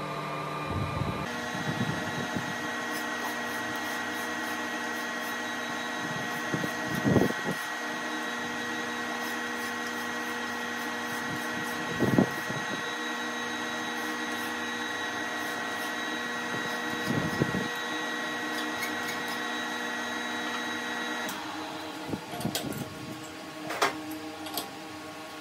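Steady machine hum in a metal workshop, with three sharp metallic knocks spread through it as a steel block is set and clamped in a lathe's four-jaw chuck. The hum stops near the end, leaving a quick run of smaller clicks and knocks from the chuck work.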